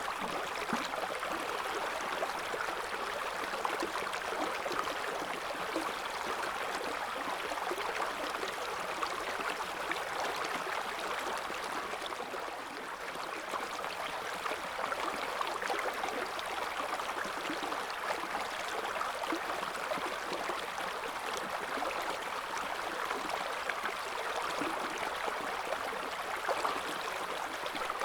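River water flowing steadily over stones, a continuous babbling rush with fine splashes and a brief slight dip about halfway through.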